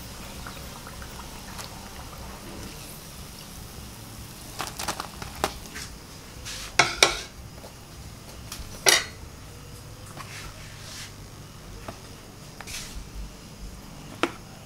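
Metal kitchen utensils clinking: tongs and a spoon knocking against a plate and a batter bowl in scattered sharp clicks, the loudest a pair about halfway through and another shortly after, over a low steady background.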